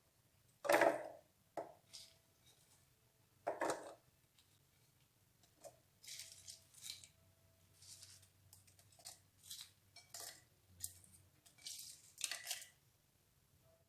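Kitchen prep handling sounds: two sharp knocks in the first four seconds, then a run of short, crisp scraping strokes.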